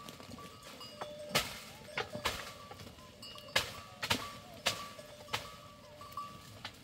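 Bells on a grazing herd of goats clanking irregularly, about nine sharp strikes, some leaving a short ringing tone.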